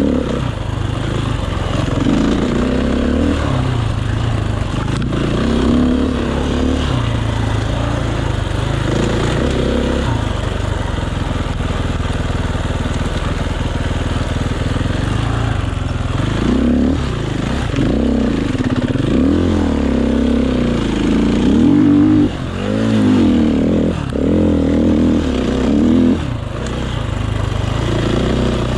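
Enduro motorcycle engine running under changing throttle. Its pitch holds fairly steady at first, then rises and falls over and over in the second half, with short drops in level where the throttle is shut.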